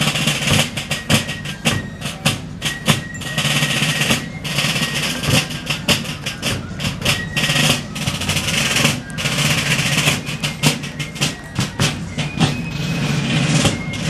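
Rope-tension snare drums of a fife and drum corps playing a cadence: rapid rolls broken by sharp, separate strokes.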